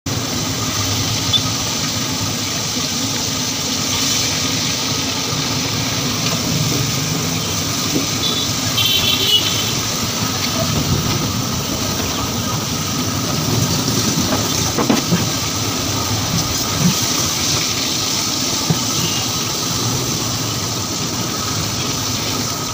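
Steady rushing noise of a sweet-maker's burner firing under a large iron kadai of simmering liquid.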